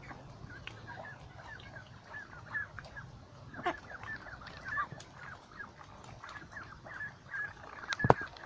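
A flock of white domestic ducks calling, many short high-pitched calls overlapping one after another. Two loud sharp knocks land close together near the end.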